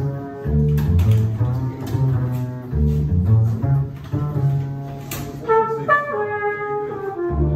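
Small jazz ensemble playing: a double bass plucks a line of separate low notes beneath a flugelhorn melody, which climbs higher a little past the middle.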